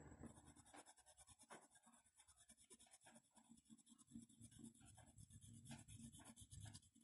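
Pencil scratching faintly on paper in many short, quick strokes as the feathers of a drawing are shaded.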